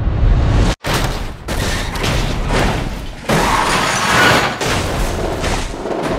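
Film sound effects of an animated stock car crashing at speed: a dense run of heavy impacts, crunching and metal scraping on the track. The sound cuts out suddenly for a moment about a second in, then the crash noise returns.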